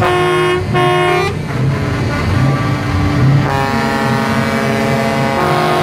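Truck air horn giving two short blasts, then a longer held chord of several notes from about three and a half seconds in, over the low rumble of diesel truck engines.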